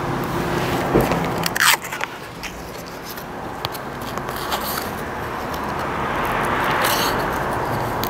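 Small handling noises at a motorcycle's handlebar controls: sharp clicks and rubbing as hands work at the clutch lever and switch housing. A low steady hum is under the first second and a half, and a noisy background swells later.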